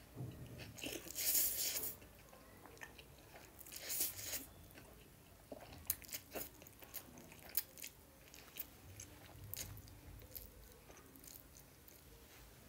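Close-miked eating of fried Wai Wai instant noodles: a long slurp about a second in and another around four seconds, then chewing with many short, sharp wet mouth clicks.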